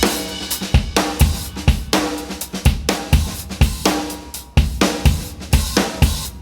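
Outro music with a drum-kit beat of bass drum, snare and cymbals, about two beats a second.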